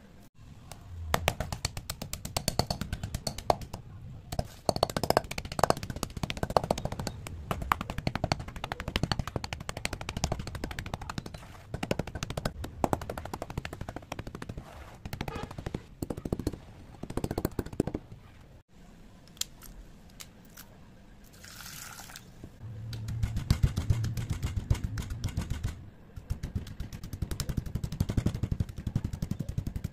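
Chalk being crushed in several short clips: dense, rapid crackling and crunching as the chalk crumbles, first squeezed by hand, then pressed into a pile of broken chalk, and near the end pounded with a pestle in a stone mortar, with heavier thuds from the strokes.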